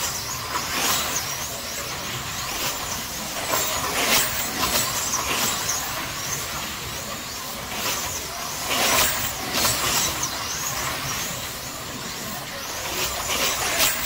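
Electric slot cars racing round a multi-lane track: the high whine of their small motors and the hiss of the cars on the track, swelling each time a pack of cars passes, several times over.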